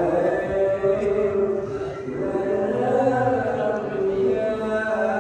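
Voices chanting an Islamic recitation, with long held notes that glide up and down.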